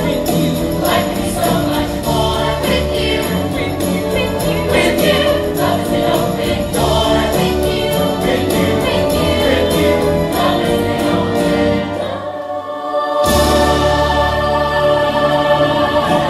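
Stage-musical finale: an ensemble of voices singing as a choir over a full orchestral backing with bells and rhythmic percussion. About twelve seconds in the bass drops out for a moment, then the music comes back with a big held chord.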